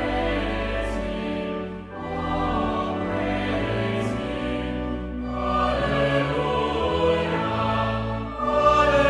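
A hymn sung by a choir, in several parts with a low sustained accompaniment, in long held phrases with short breaks between them about two seconds in and near the end.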